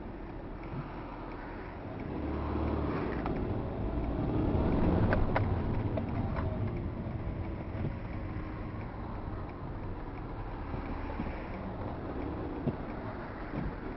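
Low rumble of a car's engine and tyres heard from inside the cabin as the car rolls slowly and slows to a crawl. The rumble swells louder for a few seconds in the first half, with a short sharp click about five seconds in.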